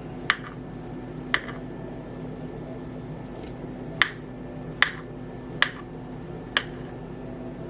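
Knife slicing peeled bananas into pieces, its blade tapping the cutting board in sharp single clicks about once a second, over a steady low hum.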